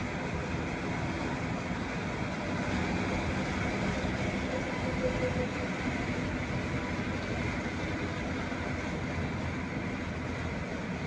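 Steady running rumble and hum of a moving vehicle heard from inside, with a brief faint whine about five seconds in.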